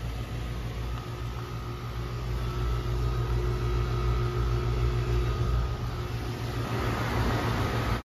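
2015 Goodman GSZ14 heat pump outdoor unit running through a defrost cycle: a steady low hum with a faint steady whine above it, growing a little louder about two seconds in.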